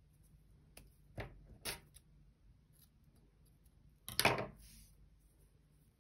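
Scissors snipping yarn: two short snips about a second in, then a louder, longer cut about four seconds in.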